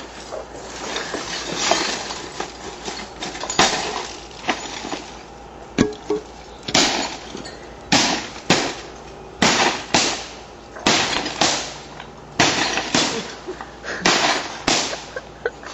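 A computer being smashed: about a dozen heavy blows at an uneven pace, coming closer together in the second half, each followed by a short crash of breaking parts.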